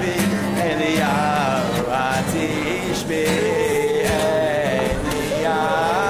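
A man singing a flowing melody to guitar accompaniment.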